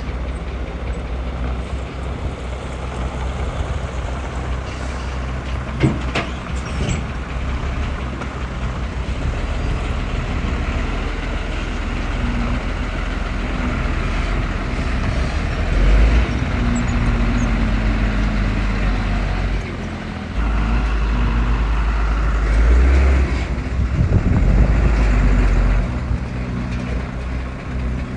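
Heavy diesel engine of earthmoving machinery running under changing load, swelling louder around the middle and again later on. There is a sharp clank about six seconds in.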